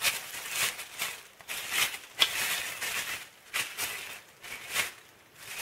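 Clear plastic packing bag crinkling and rustling as it is handled, in a string of short, irregular rustles.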